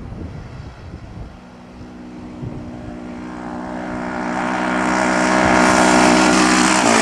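Yamaha Timberwolf 250 quad's single-cylinder four-stroke engine running through a homemade straight-pipe exhaust at a steady pitch, growing steadily louder as it approaches and passing close near the end. The exhaust has a leak where the pipe joins the header, which the owner says makes it sound raspy.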